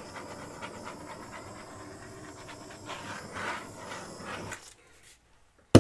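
Handheld butane torch running with a steady rushing hiss as its flame is passed over wet acrylic paint to pop air bubbles; it stops about four and a half seconds in. A single sharp click near the end.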